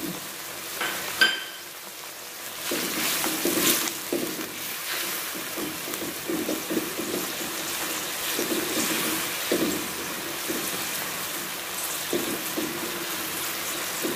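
Chili and tomato sauce simmering and sizzling in a wok while a spatula stirs it, scraping against the pan again and again from about three seconds in. A short ringing clink comes about a second in.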